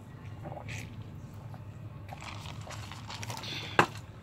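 A person drinking from a paper cup: soft sips and swallows, then a single sharp click near the end.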